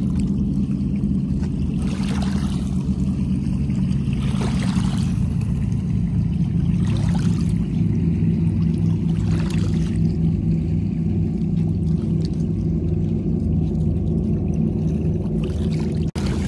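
Small waves washing over a rocky shoreline, a fuller wash every two to three seconds, over a steady low rumble. The sound breaks off briefly just before the end.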